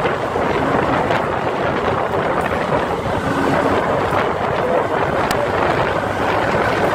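Steady wind rush buffeting the microphone of a motorcycle riding at speed, with road noise mixed in and no clear engine note standing out.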